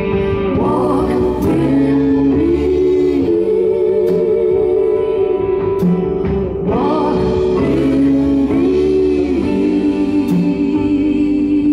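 Live band music: a woman sings long held notes over the band. Keyboard, drums and electric bass play behind her, with a few sharp cymbal or drum strikes.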